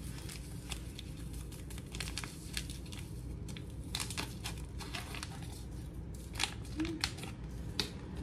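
Small seasoning packets crinkling and rustling in the hands as they are torn and shaken empty, a scatter of short crackles over a steady low room hum.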